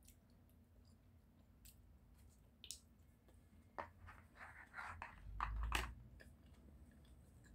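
Wooden chopsticks clicking and scraping against a black plastic sushi tray: a few faint clicks, then a cluster of small clicks and rustles starting about four seconds in, with a low thump about two-thirds of the way through.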